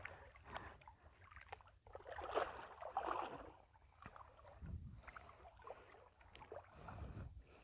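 Faint, intermittent water sloshing and splashing, with a couple of low muffled bumps.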